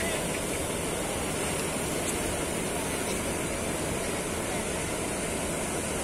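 Ocean surf breaking and rushing up the beach, a steady rush of water noise with no distinct crashes.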